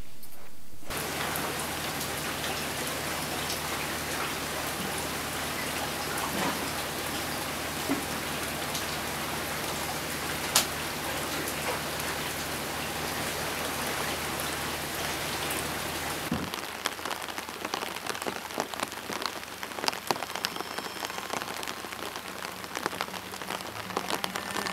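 Steady rain falling on water, with a low steady hum underneath that stops about two-thirds of the way through. After that the rain sounds closer, with individual drops heard splashing on the water surface.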